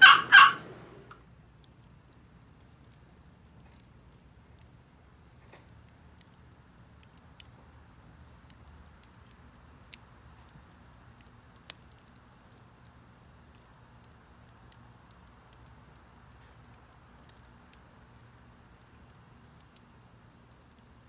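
Walnut and cedar turkey box call finishing a run of rapid gobble strokes, which stops about half a second in. After that only faint room tone with a steady thin high whine and a few soft clicks.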